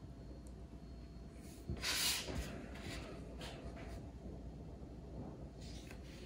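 Faint handling noise: a few soft rustles with light knocks, the loudest about two seconds in, over a low steady room hum.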